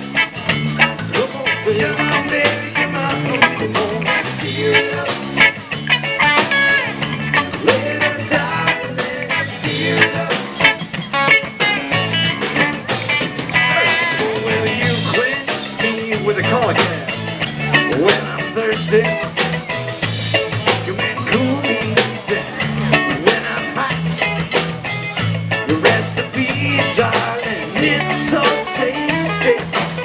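Live band playing an instrumental passage in a ska/reggae style: electric and acoustic guitars over bass guitar, drum kit and hand drums, with a steady beat.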